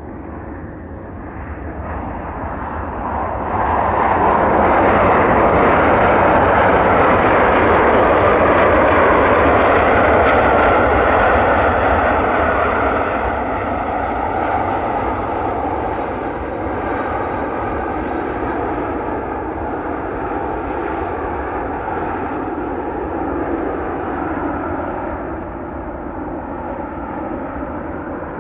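Bombardier CRJ regional jet's two rear-mounted turbofan engines during the landing rollout. The noise builds over about two seconds to a loud peak that holds for about eight seconds, typical of reverse thrust braking, then eases back to a lower steady run as the jet slows.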